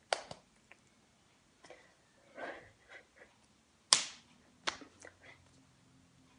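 Hands clapping and slapping together during sign language: a few sharp claps near the start, the loudest about four seconds in and another just before five seconds, with a soft rustle between them.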